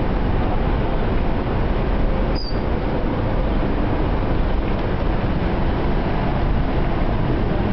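Steady city street noise, a constant rumbling roar of traffic, with one short high chirp about two and a half seconds in.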